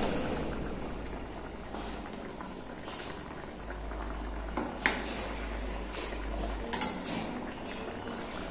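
Light clinks of a ceramic bowl and plate being handled, two sharp ones about two seconds apart, over a steady soft hiss.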